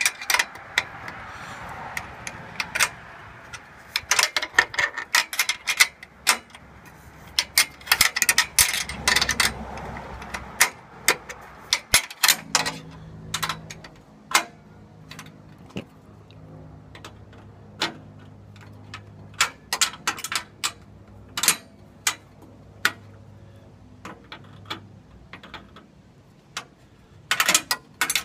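Irregular metallic clicks and clinks of hand tools on steel bolts, nuts and washers as hardware is tightened on a solar panel's aluminum mounting frame, thick in the first half and sparser later. A low steady hum comes in about halfway through.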